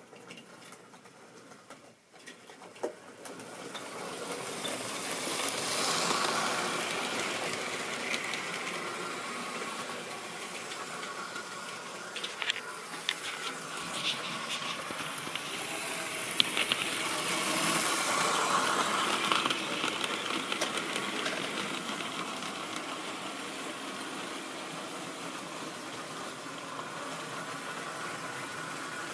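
Electric model railway train running on the track, its small motor whirring with the wheels rattling over the rails. It grows louder twice as it passes close. A few sharp clicks come in the middle.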